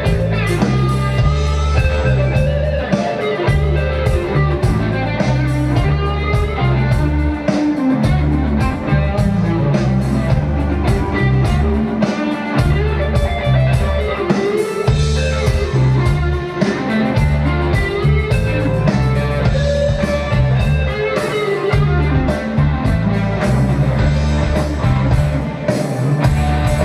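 Live rock band playing an instrumental passage: electric guitar over a repeating bass line and drum kit.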